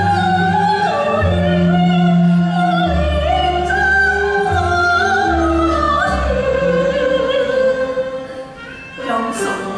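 Cantonese opera singing: a singer holding a long, bending melodic line over instrumental accompaniment with sustained low notes. The line sinks and fades about eight seconds in, and a new phrase starts near the end.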